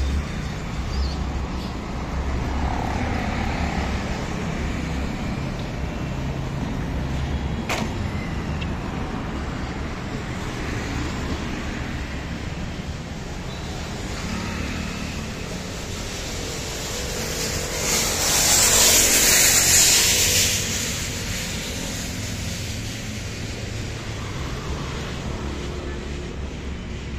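Road traffic running steadily with a low rumble. A vehicle passes close by about two-thirds of the way through, giving a louder rush that rises and fades over about two seconds. A single sharp click comes earlier.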